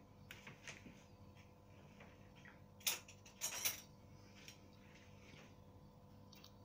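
Quiet kitchen with a few light taps and clinks of utensils and bowls, the loudest about three seconds in.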